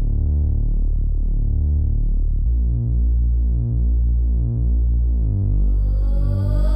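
Electronic background music: sustained low synthesizer chords with a pulsing bass and no speech, building with a rising sweep near the end.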